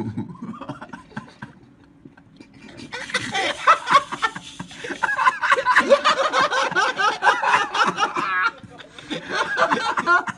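People laughing in rapid bursts, starting about three seconds in after a quieter stretch.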